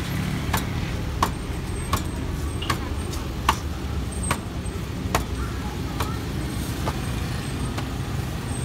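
Thin roti dough being slapped and flung against an oiled stainless-steel counter as it is stretched out, a sharp slap roughly every three-quarters of a second for the first five seconds, then sparser. A steady rumble of street traffic runs underneath.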